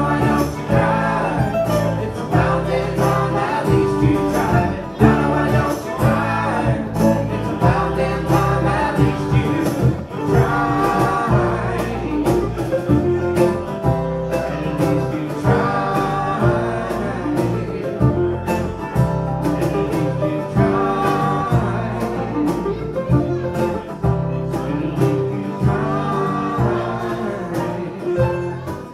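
Live acoustic string band playing a country-bluegrass song, with mandolin and acoustic guitar over a steady bass line.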